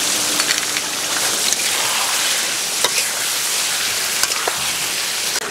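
Cucumber chunks and ground spices sizzling in hot oil in a metal karahi while a metal spatula stirs them, with a few sharp clinks and scrapes of the spatula against the pan.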